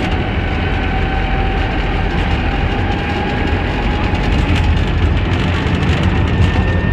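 UV tram running along the track: steady rolling and rumbling noise with faint steady motor whines.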